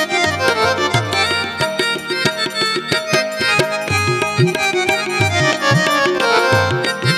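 Electronic keyboard playing a busy melody in a reedy, harmonium-like voice, over tabla whose bass strokes bend upward in pitch.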